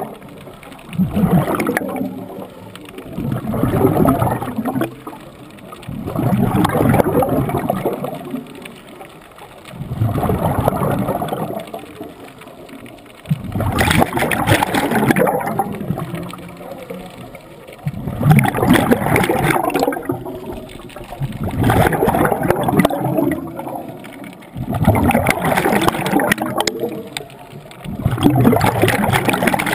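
Scuba diver breathing through a regulator underwater: regular gurgling bursts of exhaled bubbles, about every three to four seconds.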